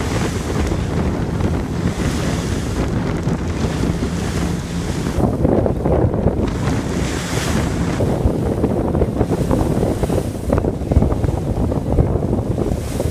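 Wind buffeting the microphone on the deck of a passenger ferry under way, over the rush of sea water and a steady low hum from the ferry's engines.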